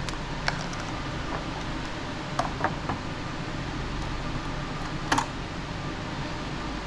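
Small hard clicks and clacks of computer parts being handled: one about half a second in, three quick ones a little after two seconds, and the loudest, a double click, about five seconds in. Under them runs a steady fan hum.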